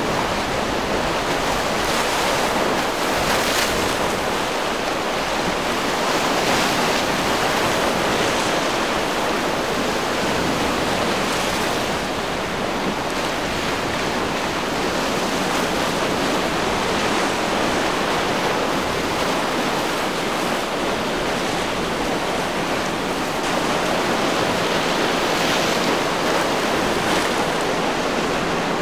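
Steady rush of surf and breaking waves in choppy inlet water, with wind buffeting the microphone; the noise swells briefly now and then as waves break.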